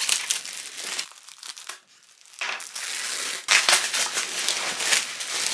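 Plastic bubble wrap crinkling and rustling in bursts as it is handled and pulled off a boxed album. The crinkling pauses briefly about two seconds in and is loudest in the second half.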